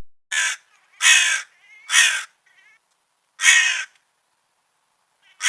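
A crow cawing: four harsh, separate caws in the first three and a half seconds, with a pause before another starts near the end.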